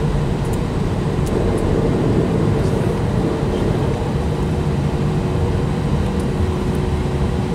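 Airbus A320's IAE V2500 turbofan engines heard from inside the cabin, running steadily as the airliner taxis onto the runway: an even low rumble with a constant faint hum above it.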